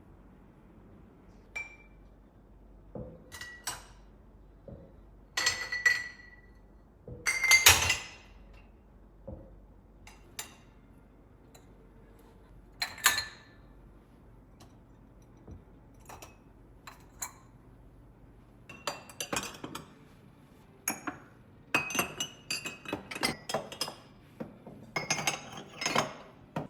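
Glassware and dishes clinking and knocking as they are handled: a string of separate short clinks, some ringing briefly, busiest near the end.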